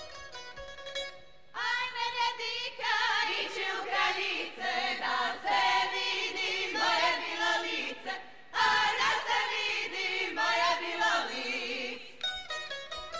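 A group of women singing a Slavonian kraljice folk song together without accompaniment, in two sung phrases with a short breath-break around 8 seconds in. Plucked string instruments play briefly at the start and come back in near the end.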